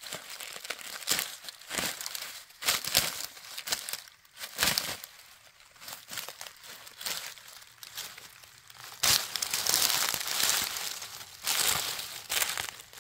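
Hands pulling apart and crumpling dry fallen leaves and crumbly, papery debris, a run of crackling, tearing rustles. The crinkling is thickest and loudest about nine to eleven seconds in.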